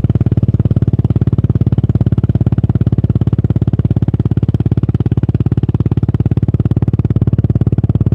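Exhaust of a 2018 fuel-injected Yamaha SR400's single-cylinder four-stroke engine through a Goods tapered-cone slip-on muffler, running at a steady, unchanging speed as an even, fast beat of firing pulses.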